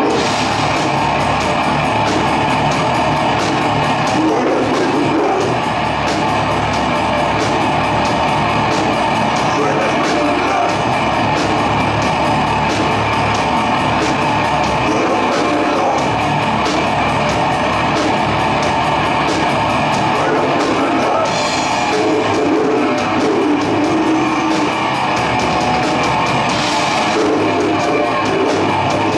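Death metal band playing live: heavily distorted electric guitars, bass and fast, dense drumming, with harsh vocals coming in at times.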